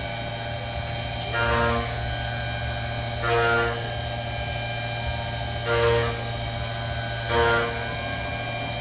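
CNC milling machine running: a steady spindle hum and whine, with four louder half-second surges about every two seconds as the cutter bites into the metal.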